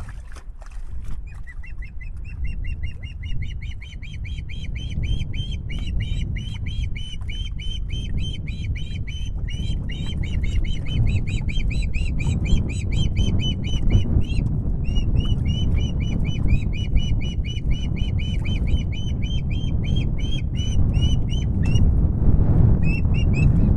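Juvenile osprey calling: a long, fast series of short, high whistled chirps, several a second, with a brief break about two-thirds of the way through. A steady low rumble of wind on the microphone sits underneath.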